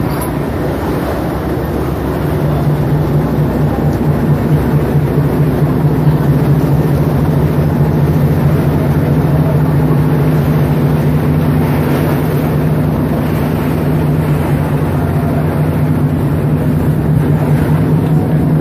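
A passenger ferry's engines running under way, heard aboard as a steady low drone with a rush of water and wind. The drone grows louder and stronger about two seconds in, then holds steady.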